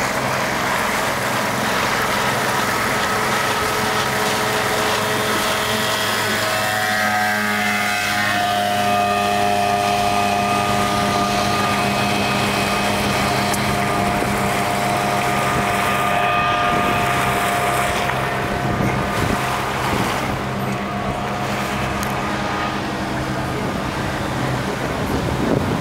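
Motorboat engine running steadily, with wind noise on the microphone.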